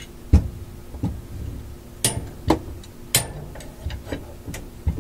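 A large clamp being handled and fastened up into wooden rafters: a series of irregular knocks and clicks, about six in five seconds, the first a heavy low thud.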